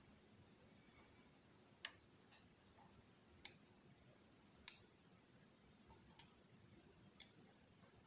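Faint, sharp clicks of steel tweezers against a Miwa Anker 3800 lock core, about six spread irregularly, as the magnetic sliders and their springs are picked out of the core during disassembly.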